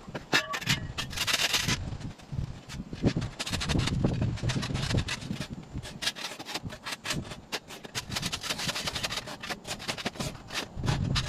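Steel shovel blades scraping over a concrete sidewalk in repeated, irregular strokes, shaving off overgrown turf and dirt to uncover the path.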